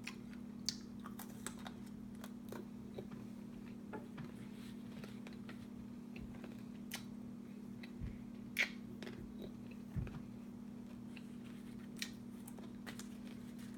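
Hard candy being chewed and crunched: scattered small crunches and clicks, with two duller thumps about eight and ten seconds in, over a steady low hum.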